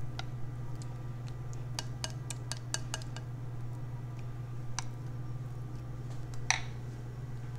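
A spoon spreading thick custard in a cut-glass bowl, giving light clicks against the glass: a quick run of them about two to three seconds in, and one louder clink near the end. A steady low hum sits underneath.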